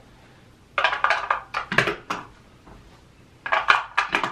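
AA rechargeable batteries being pushed into the slots of a plastic eight-bay battery charger: sharp clicks and clacks in three bunches.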